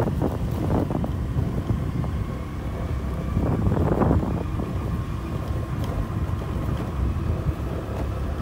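Wind buffeting the microphone over the steady low drone of a motorcycle engine while riding, with a stronger gust about three and a half seconds in.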